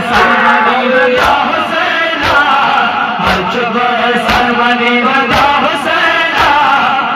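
A crowd of men chanting a Pashto noha together, with sharp strikes about once a second as they beat their chests in unison (matam).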